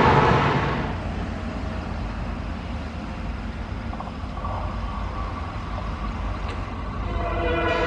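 An EMD WDP-4 diesel locomotive with a passenger train approaching at speed: a passing train's noise fades over the first second, then a steady low rumble, growing louder near the end with a chord of pitched tones as the locomotive nears.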